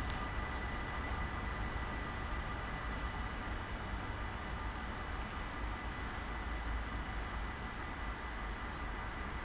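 Dutch level-crossing warning bells ringing steadily as the crossing closes, over a low rumble.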